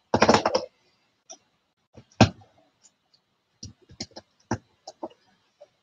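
Plastic LEGO bricks clicking and clattering as pieces are handled and pressed together: a short clatter at the start, one sharp click a little over two seconds in, then a run of scattered lighter clicks.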